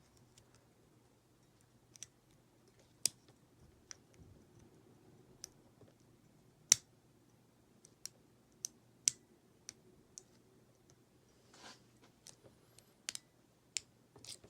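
Hand lock picking on an American 1100 padlock: a hook pick tapping pins in the keyway, giving a dozen or so sharp, irregularly spaced small clicks, two of them louder than the rest. Each click marks the picker hunting for and setting the binding pin.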